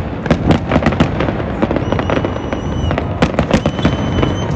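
Aerial firework shells bursting in a rapid, irregular run of bangs and crackles, several a second, over a constant low rumble.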